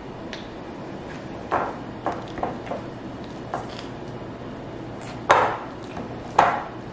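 Potatoes being mashed by hand with a plastic potato masher in a glass bowl: a series of irregular soft thuds as the masher is pushed down through the potatoes, with the two loudest strokes near the end.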